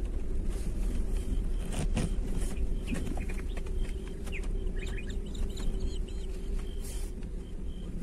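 Steady low rumble of a vehicle moving along a dirt track, with birds calling over it: short chirping calls bunched in the middle and a high chirp repeated at an even pace.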